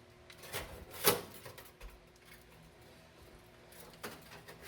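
Handling noises of metal parts and wire being worked inside a car body: light rubbing with a few knocks, the sharpest about a second in.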